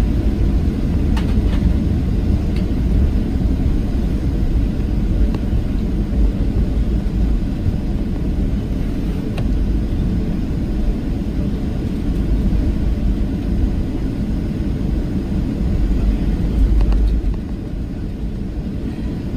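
Steady low cabin rumble of a Boeing 737-700 on the ground as it moves off for departure. A few faint clicks sound over it, and near the end the rumble swells briefly, then eases to a lower level.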